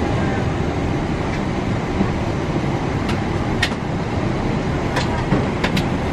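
Steady rumble of a Boeing 777-300ER's cabin during boarding, the air-conditioning running, with a few sharp clicks and clatters scattered through the second half.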